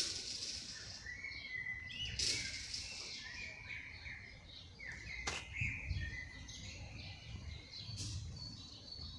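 Small birds chirping and singing in the background, short chirps and sliding whistles, with a single sharp click a little past five seconds in.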